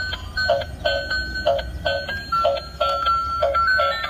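Battery-powered transparent gear toy race car playing its built-in electronic tune: simple beeping tones changing pitch over a steady beat of about two pulses a second.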